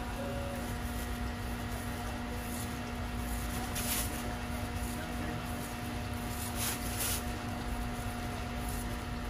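A kitchen knife slicing strips of netted rind off a muskmelon in a few short strokes, over a steady background hum with a constant low tone.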